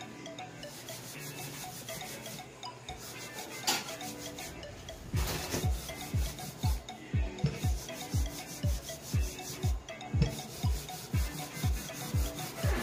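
Rolling pin rubbing back and forth as pizza dough is rolled out, with a sharp knock about four seconds in. From about five seconds in, background music with a steady low thudding beat, about two beats a second, plays under it.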